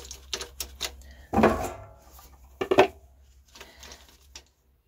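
A spark plug being unscrewed from a Ford CVH engine's aluminium cylinder head with a socket wrench: metal clicks of the tool, and two loud creaking squeaks about a second and a half in and near three seconds as the plug's threads turn in the head.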